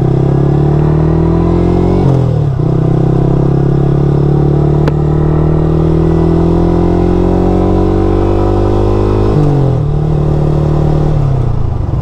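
Yamaha R15's single-cylinder engine running under way as the bike rides along. Its pitch climbs slowly, dips sharply at a gear change about two seconds in, then climbs again, and falls in two steps near the end as the bike slows. A single sharp click comes about five seconds in.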